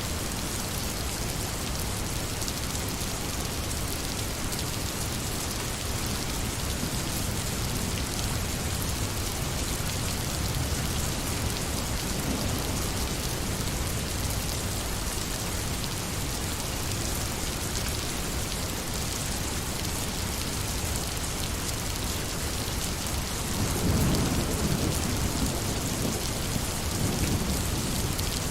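Steady heavy rain falling, with low rolls of thunder rumbling in about 24 seconds in and again near the end.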